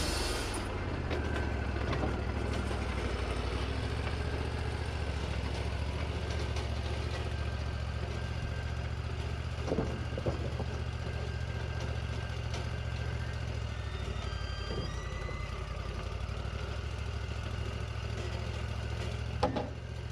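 Wood-Mizer LT40 band sawmill's engine running steadily with a low hum, after a louder hissing noise stops within the first second. A couple of short knocks come about halfway, and a sharper one comes near the end.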